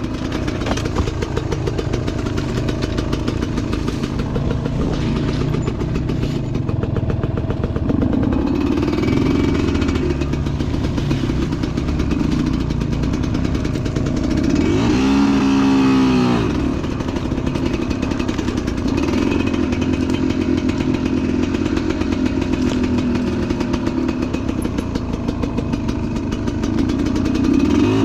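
Enduro motorcycle engine running at low speed on a trail, with one brief rev that rises and falls in pitch about halfway through.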